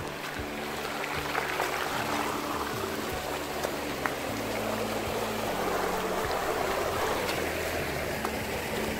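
Heavy rain and rainwater running down a muddy runoff channel: a steady rushing hiss that swells a little towards the end, with scattered sharp ticks.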